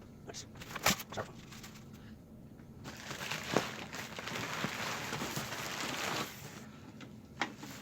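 Handling noises: a few sharp clicks and knocks, with a stretch of rustling from about 3 to 6 seconds in.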